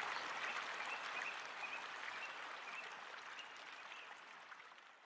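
Steady hiss of flowing water with faint short chirps repeating through it, fading out steadily.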